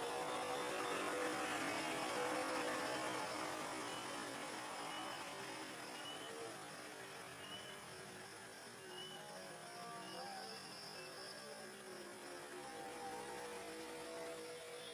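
Steady low hum and hiss of background ambience, with faint wavering distant tones and a few short, faint high chirps partway through.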